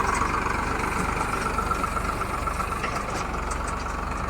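Farmtrac 6055 tractor's diesel engine running steadily with an even low pulse, not revving.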